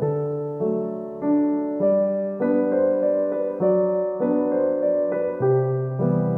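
Background solo piano music: a gentle melody over sustained chords, with a new note or chord about every 0.6 seconds.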